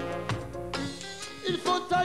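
Live band music in an instrumental passage: held melody notes over drums, with a few sharp drum strikes near the end.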